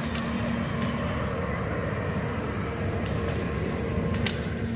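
A large fire burning close by: a steady rumble under a low hum, with a couple of sharp crackling pops, one at the very start and one about four seconds in.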